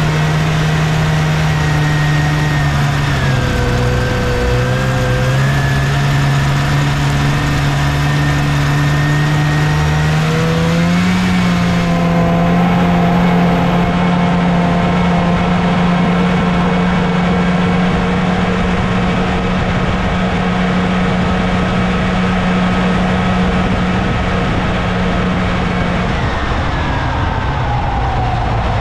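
Two-stroke engine of a 1979 Scorpion TKX 440 Whip snowmobile running under way. Its pitch dips a few seconds in, rises just after ten seconds and holds steady, then falls near the end.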